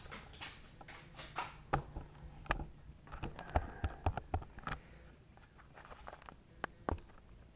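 Footsteps and handling noise in a small room: irregular light taps and clicks, busiest in the middle, with a couple of sharper knocks near the end.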